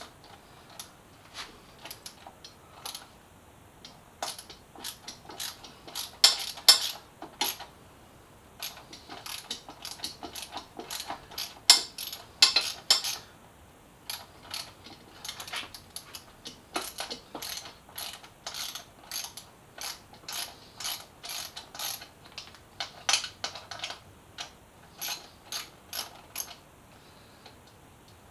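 Ratchet wrench with a 12 mm socket clicking in quick runs of strokes, with short pauses between runs, as a bolt on a motorcycle's headlight stay bracket is loosened.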